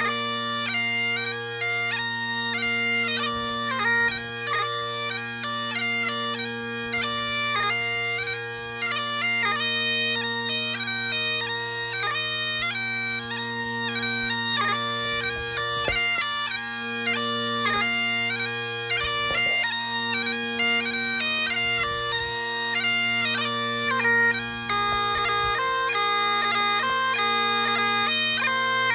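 Burley Great Highland bagpipes playing a march tune: steady drones held underneath while the chanter runs through a quick, ornamented melody without a break.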